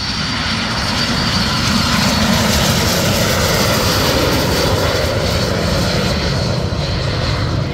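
Aero L-39 Albatros jet trainers' turbofan engines at full throttle: a high whine over a loud rushing jet noise that swells over the first couple of seconds and then holds.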